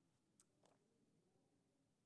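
Near silence: room tone, with two faint short clicks in the first second.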